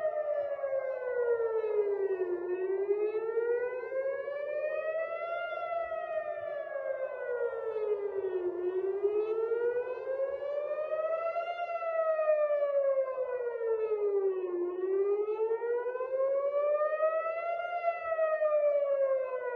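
Civil defence air-raid warning siren wailing, its pitch rising and falling slowly in a cycle of about six seconds. It is sounding as a missile alert.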